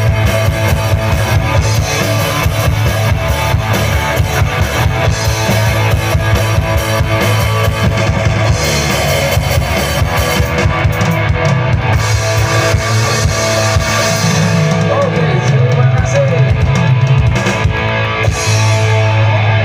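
Live rock band playing, with drum kit and guitars.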